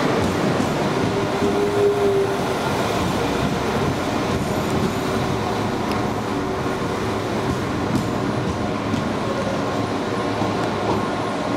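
London Midland Class 172 diesel multiple unit passing along the platform and pulling away, its diesel engine and wheels on the rails running steadily and echoing under the covered station roof. A steady whine sounds for the first couple of seconds.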